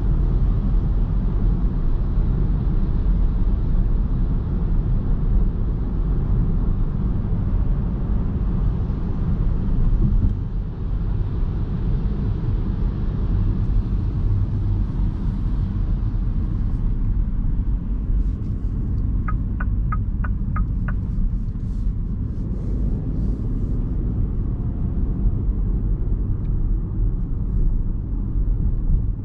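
Steady low rumble of road and tyre noise heard inside the cabin of a 2021 MINI Cooper S E ALL4 Countryman plug-in hybrid on the move; it eases off a little about a third of the way in. About two-thirds through, a quick run of about six ticks.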